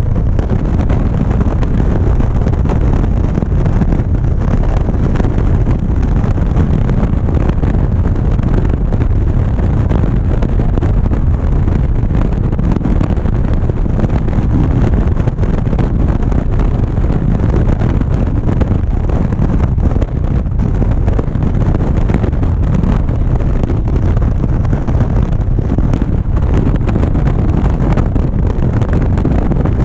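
Steady wind buffeting the microphone of a motorcycle cruising at highway speed, mixed with the bike's engine and tyre noise.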